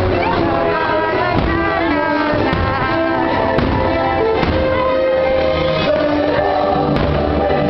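Loud music with singing, steady throughout, with a few faint sharp cracks of aerial fireworks bursting in the sky, about five in all.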